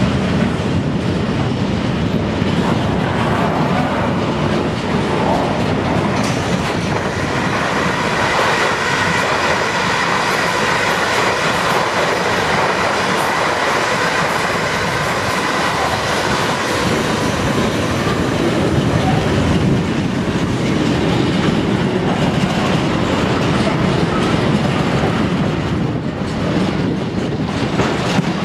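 Loaded container freight wagons passing close by: a steady rumble and clatter of wagon wheels over the rail joints, with a faint high squeal through the middle.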